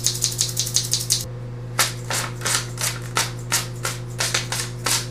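Scissors snipping: a fast run of crisp snips, then after a short pause slower, spaced snips as they cut through paper.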